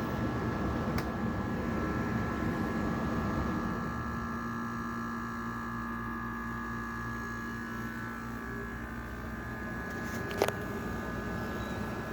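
General Electric 5,050 BTU window air conditioner running, its compressor and fan giving a steady hum with a few faint whining tones; the compressor is not that loud. A sharp click about ten seconds in.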